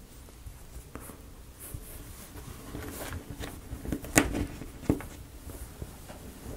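Small wooden model-kit pieces clicking and tapping as they are handled and pushed into place, with one sharper click about four seconds in.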